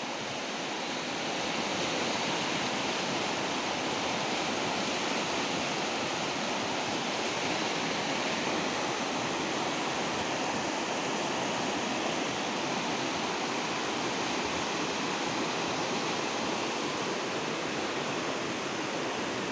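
Rushing white water of a fast, rocky river: a steady, unbroken roar of rapids pouring over boulders, building slightly in the first two seconds and then holding level.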